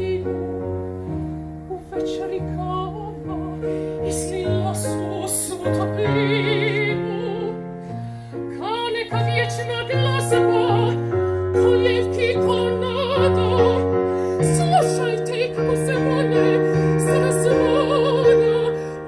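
A woman singing in operatic style with a wide vibrato, accompanied by sustained chords on a digital piano whose bass moves every second or two.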